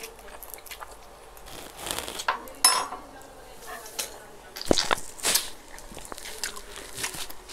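Eating sounds: biting and chewing on pita-wrapped shawarma, with scattered sharp clicks and clinks of cutlery against dishes. The loudest click comes almost three seconds in.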